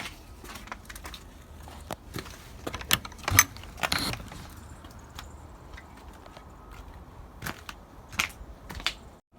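Irregular crunching and clicking, like footsteps in snow, with the loudest crunches about three to four seconds in. The sound cuts out briefly near the end.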